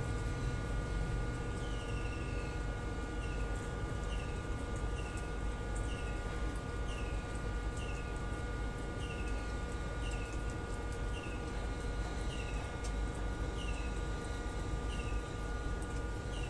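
Rabbits chewing leafy greens, faint crunching over a steady low hum. A bird chirps about once a second, a short falling note each time.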